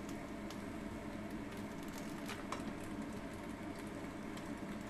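Pasta and mussels simmering in sauce in a pan on the stove, a steady low hiss and bubbling as the sauce cooks down, with two faint clicks of the utensil against the pan a little over two seconds in.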